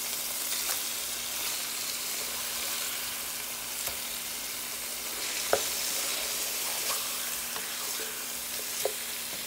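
Ground-beef burger patties sizzling in hot grease in a frying pan while a black slotted spatula turns them over, with a few light clicks of the spatula against the pan. The sharpest click comes about five and a half seconds in.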